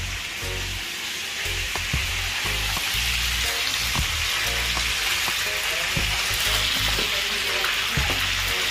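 Whole marinated changu (emperor fish) frying in hot oil in a pan: a steady sizzle, with scattered clicks and scrapes of a spatula against the pan as the fish are worked.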